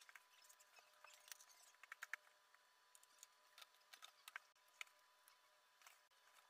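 Near silence with faint, scattered clicks and taps of LEGO plastic pieces being handled on a built model, at irregular intervals.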